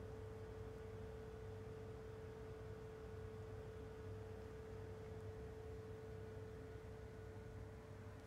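Small desk fan running: a faint, steady hum with one clear tone.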